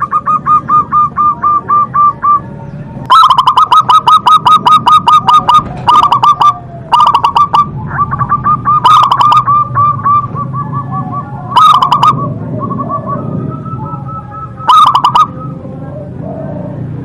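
Zebra doves (perkutut) cooing: runs of rapid, evenly spaced coo notes. One bird is close and loud in short bouts, and fainter cooing fills the gaps between.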